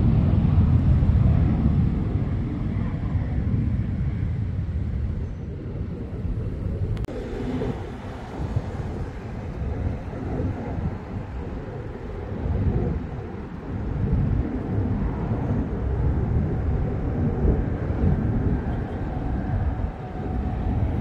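Low rumble of distant jet aircraft, fading over the first few seconds and building again near the end.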